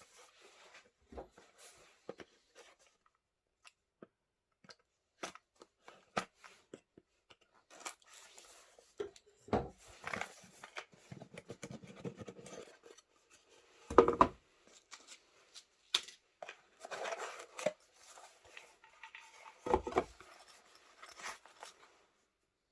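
Packaging being handled and opened: rustling and scattered clicks, with three louder thumps about ten, fourteen and twenty seconds in.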